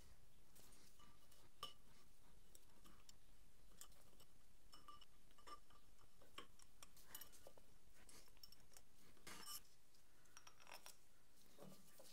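Faint scattered clicks and clinks of small metal parts of a Procunier 3E tapping head being handled and fitted together by hand, with a slightly louder rattle about nine seconds in.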